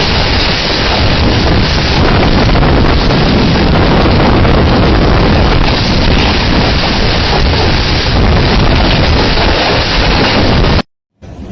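Tornado-strength storm wind blasting the microphone: a loud, steady rushing noise with no let-up. About eleven seconds in it cuts off abruptly, and after a brief silence a much quieter rushing follows.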